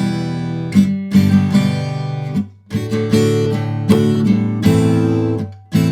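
Acoustic guitar strumming chords across all strings, cut off sharply three times by left-hand muting between phrases.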